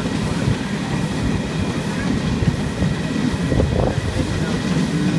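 Passenger train running along the track, heard from an open carriage window: a steady rumble of wheels on rail mixed with air rushing past.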